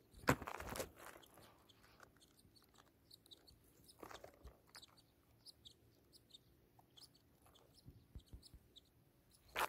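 Faint, high cheeps of downy nestlings begging with open beaks, many short peeps scattered throughout. A loud crackling rustle comes just after the start and another near the end.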